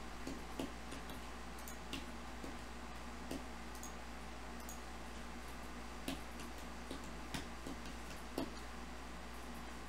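Scattered single clicks of a computer mouse, about ten at irregular intervals, over a steady low hum.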